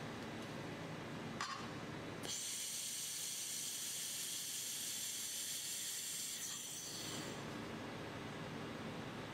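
Laser welding head welding a wire spring to a metal plate: a steady hiss starts about two seconds in, runs for about four and a half seconds and stops. A short click comes just before it, over a steady low machine hum.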